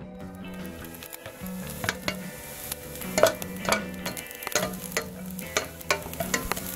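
Chopped pre-cooked bacon sizzling in a stainless steel saucepan while it is stirred, the utensil scraping and clicking irregularly against the pan.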